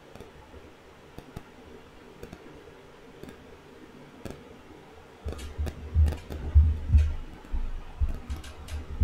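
Scattered computer mouse clicks and keyboard taps over faint room noise. From about five seconds in comes a run of loud, low thuds mixed with more clicks.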